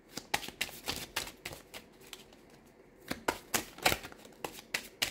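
A deck of tarot cards being shuffled and handled: quick runs of card snaps and flicks, thickest in the first second and again from about three seconds in.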